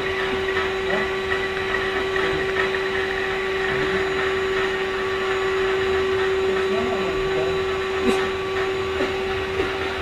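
Canister vacuum cleaner running steadily, its motor giving a constant whine over a rushing noise.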